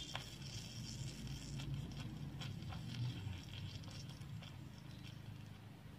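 Butter, garlic and crab sizzling in a miniature copper frying pan as sweet chili sauce is added, with light clicking and scraping from a tiny utensil in the pan.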